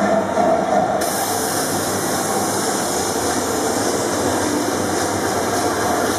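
Recorded train sound effect, a train running with a steady hiss that comes in suddenly about a second in.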